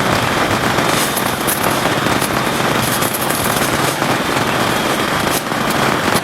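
Heavy rain falling: a loud, steady, dense hiss of many drop impacts.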